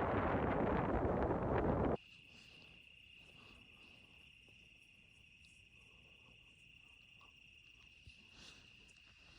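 A loud rushing noise for about two seconds, which cuts off suddenly, then a quiet, steady, high-pitched trill of crickets.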